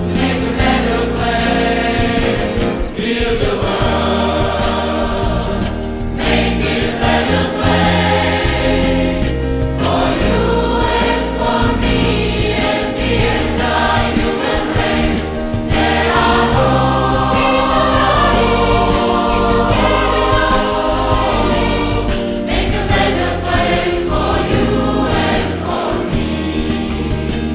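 Music with a choir singing, laid over the pictures as a soundtrack.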